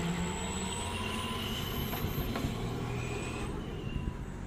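Vehicle engine running with a steady low hum.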